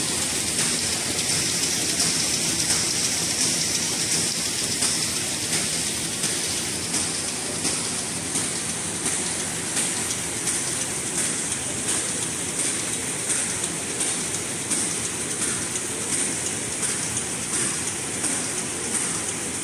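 Automatic high-speed twisted-rope-handle paper bag machine running: a steady mechanical rush and hiss with a regular repeating clatter as it turns out bags.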